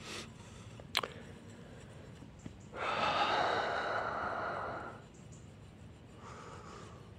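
A sharp click about a second in, then a long breathy sigh lasting about two seconds, with a fainter breath near the end.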